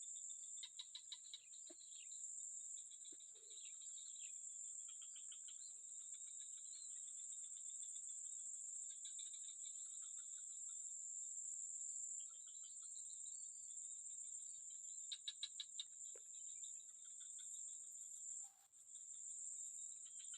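Faint, steady high-pitched drone of insects, with chirping and trilling calls over it and two short runs of rapid ticks, about a second in and near the three-quarter mark.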